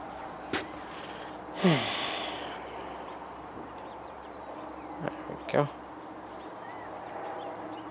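Crickets chirping in a steady high drone. About two seconds in, a brief voice sound falls sharply in pitch, and a few short clicks come before and after it.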